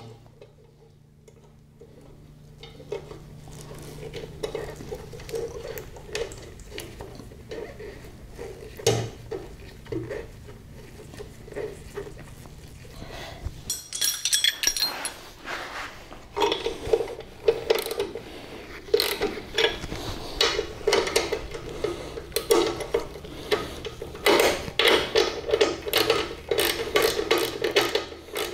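Socket ratchet clicking in repeated runs as the nuts are brought up on the bolts joining a VW swing-axle spring plate to the axle housing. The clicking gets faster and louder in the second half. A ringing metal clink comes about halfway through.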